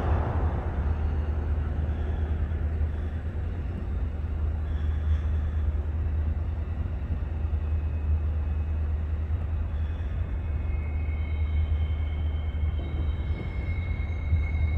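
Distant P-3 Orion's four Allison T56 turboprop engines as a low steady rumble, fading as the aircraft climbs away after a touch-and-go, with a faint high whine coming in about ten seconds in.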